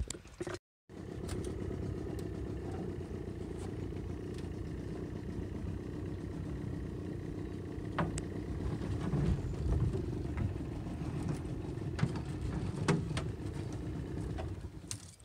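A steady low rumble runs under a hoop net being hauled by hand into an aluminium boat, with a few sharp knocks as the net's hoops strike the boat, twice in the second half.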